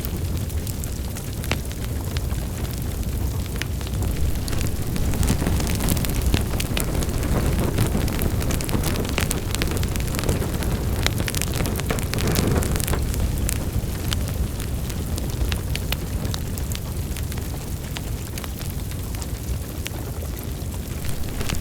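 Wood fire burning in a fireplace: a steady low rumble of flames with irregular small crackles and pops.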